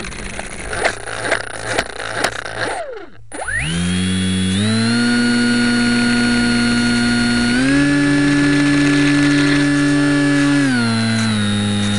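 The Cosmotec CT1811-2000 brushless motor of a small RC trainer plane whines up in pitch after a brief dropout, then runs at steady throttle. It steps up in pitch about eight seconds in and drops back shortly before the end, heard close-up from a camera mounted on the airframe. Before the dropout there is a stretch of rattling and several sharp knocks.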